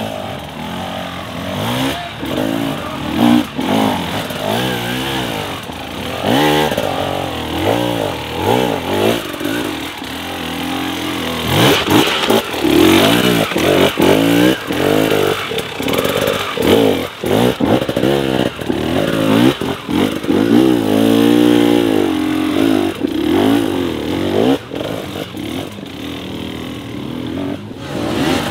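Two-stroke enduro dirt bike engine revving hard in repeated bursts, its pitch climbing and dropping as the rider works up a steep rocky climb. Short knocks and clatter of the bike striking rock come between the revs.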